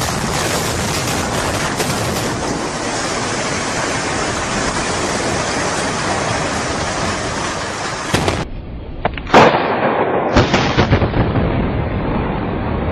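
Building collapse: a dense, steady rushing roar of falling debris and dust for about eight seconds. Then demolition charges go off: one sharp, very loud bang, and about a second later a quick string of further blasts over a rumble.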